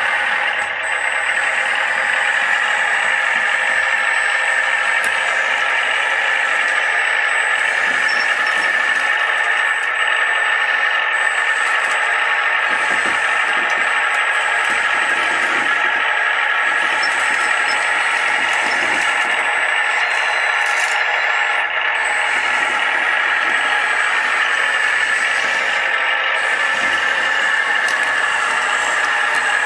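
Radio-controlled scale model construction vehicle running, a steady high whine from its electric drive.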